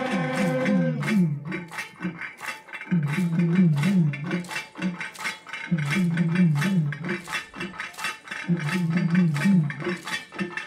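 Folk-dance accompaniment with no singing: sharp metallic clinks, about three a second, keep time while a low drum plays in short repeated phrases with brief gaps between them. A sung line ends about a second in.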